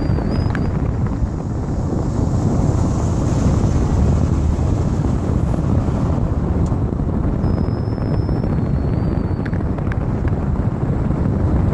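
Steady low rumble mixed with wind noise on the microphone, with a few faint high whistles partway through.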